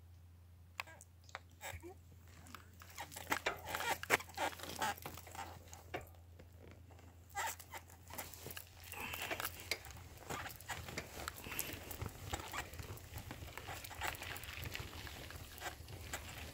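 Bicycle tyres crunching over a gravel road, with a dense run of irregular clicks and ticks starting about a second in, over a steady low hum.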